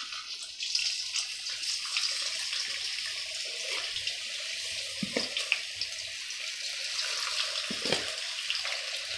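Marinated soya chunks deep-frying in hot oil: a steady sizzle with a few sharp pops, two of them about five and eight seconds in.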